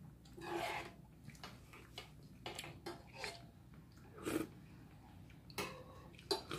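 Mouth sounds of a man eating from a spoon: short bursts of chewing, slurping and breathing through the nose, irregularly spaced, the strongest about half a second in and again a little past four seconds.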